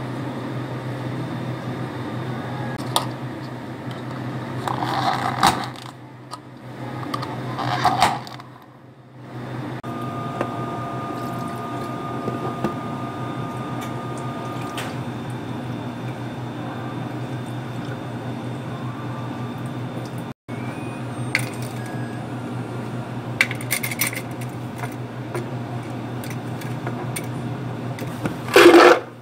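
Iced-drink preparation at a cafe counter: espresso poured from small steel pitchers into cups of milk and ice, and milk and green tea powder going into a blender jar, over a steady low hum. A brief loud clatter comes near the end.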